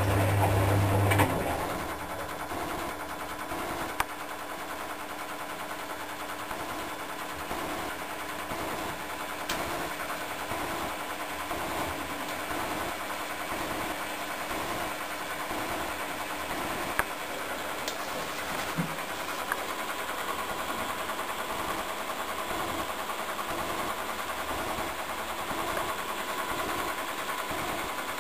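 Predom-Polar Westa 85 front-loading washing machine washing: the drum turns wet laundry with a steady mechanical running noise and a faint repeating rhythm. A loud low hum cuts off about a second in.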